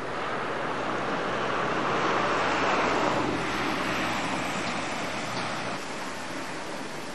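A small hatchback car drives past close by. Its engine and tyre noise swells to a peak about three seconds in, then fades away.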